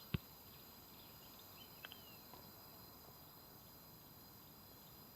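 Near silence with a faint, steady high-pitched insect chirring, like crickets, and a sharp click just after the start and a fainter one about two seconds in.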